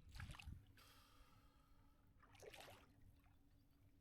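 Near silence, with two faint, brief water sounds: one at the start and one about two and a half seconds in.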